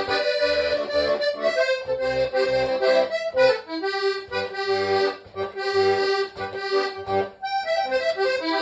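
Hohner Trichord diatonic button accordion played solo: a bright reed melody over short, rhythmic bass notes, with a brief break about seven and a half seconds in.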